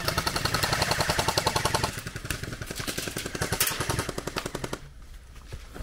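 Rapid fully automatic fire from airsoft rifles, a dense rattle of shots, louder in the first two seconds and then quieter, stopping about five seconds in.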